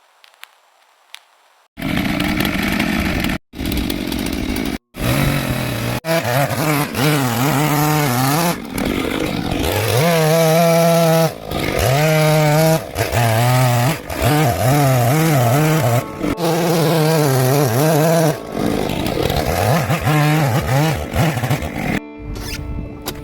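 Chainsaw running and cutting into wood, its engine pitch rising and falling as it bogs under load and revs again. It starts about two seconds in and breaks off briefly twice soon after.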